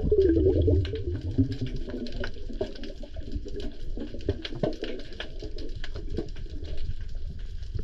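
Air bubbles from a freediver, heard underwater. A pulsing bubbling falls in pitch over the first two seconds, then gives way to a constant crackle of small clicks.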